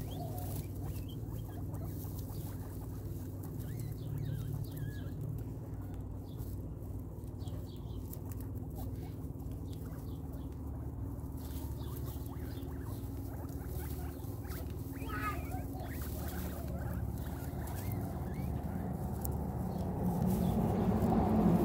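Guinea pigs chewing fruit and vegetables: many small, quick crunching clicks over a steady low hum.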